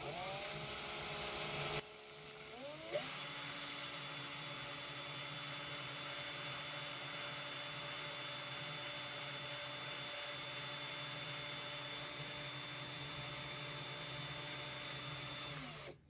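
Cordless drill spinning a small electric motor's armature while its shaft is polished with very fine sandpaper. The drill runs up briefly and stops about two seconds in, then starts again with a rising whine. It runs steadily and winds down right at the end.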